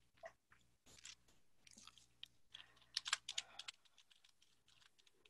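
Faint computer keyboard typing: a few scattered keystrokes, then a quick run of them about three seconds in.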